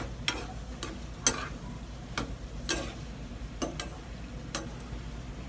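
Metal spatula scraping and clacking against a frying pan as vegetables and clams are stir-fried, about two strokes a second at an uneven pace. A steady sizzle of frying runs underneath.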